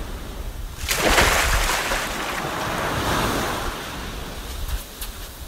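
Ocean waves washing in: a surge of surf that swells about a second in and then slowly dies away.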